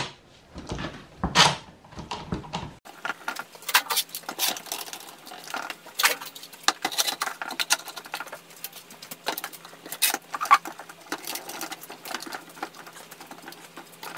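Metal bar clamps and parallel-jaw clamps being slid onto a glued-up wooden board and screwed tight: irregular clicks, knocks and rattles of the metal bars and jaws. After about three seconds a faint steady hum comes in under a quicker run of small clicks.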